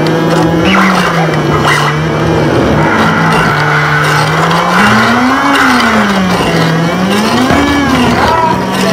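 Electronic noise music: a steady low drone that rises and falls in pitch twice, about halfway through and near the end, under a dense layer of hiss and wavering, squealing higher tones.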